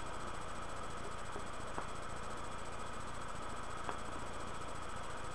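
Steady hiss of room noise, with two faint short ticks about two seconds apart.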